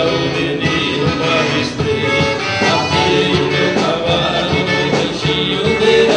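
Live sertanejo music: two male singers with a band of guitar and drums, playing at a steady beat.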